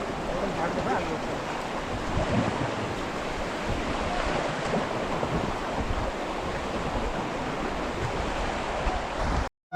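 Rushing river water around a drifting raft, with wind buffeting the microphone; the steady noise cuts off suddenly near the end.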